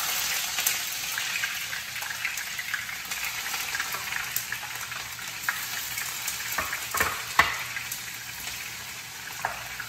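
Sliced onions dropped into hot oil in a frying pan, sizzling at once and settling into a steady, slowly easing sizzle as they begin to fry toward brown. A few sharp knocks of a spatula against the pan come about seven seconds in as the onions are stirred.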